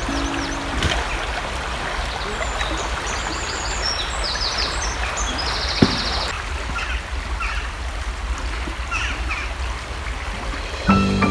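A stream running steadily, with small birds chirping over it and one bird giving a quick trill about five seconds in; a single sharp click about six seconds in. Music comes in near the end.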